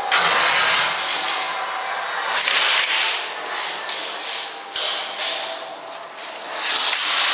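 Rustling and rubbing noise from a camera being carried on the move, surging and fading unevenly, with a few faint knocks.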